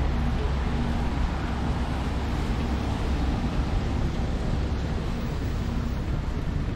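Rainy city street ambience: a steady hiss of rain and wet roads over a low rumble of traffic.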